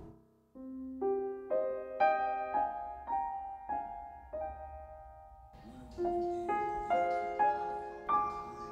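Soft piano music: single notes and broken chords in a slow, gentle melody, starting about half a second in.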